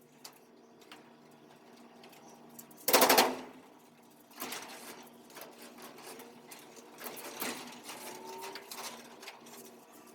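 A short burst of rapid mechanical clatter about three seconds in, followed by fainter, intermittent rattling and tapping.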